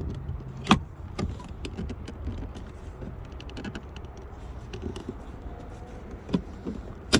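Plastic door-panel trim on a BMW X3 being pried loose with a screwdriver: scattered sharp clicks and knocks as the piece is worked free, the loudest right near the end.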